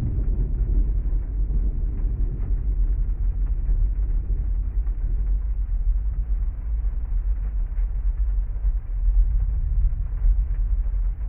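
Storm ambience heard from inside a parked car: heavy rain as an even hiss over a steady deep rumble. The rumble swells briefly near the start and again about nine seconds in.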